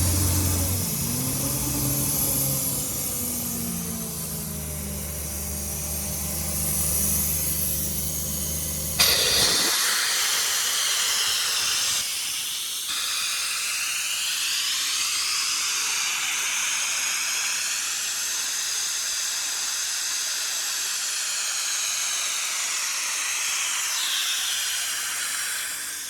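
Ingersoll Rand 7/170 N mobile compressor: its John Deere six-cylinder diesel runs with a low steady drone. About nine seconds in, a loud hiss of escaping compressed air starts suddenly and the engine note drops away, leaving a long, steady rush of venting air.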